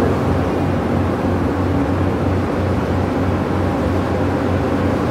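Air compressor running steadily, a low pulsing hum under a broad hiss.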